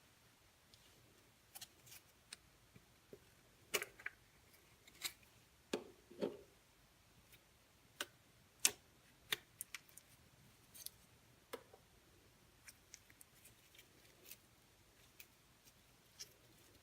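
Slime being squeezed and played with by hand, giving faint, irregular small clicks and pops, a little over a dozen, the loudest about four and nine seconds in.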